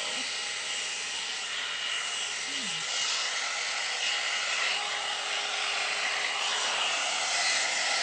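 Amika round blow dryer brush running steadily, its fan blowing hot air through the hair in a continuous rushing hiss with a faint, steady high whine.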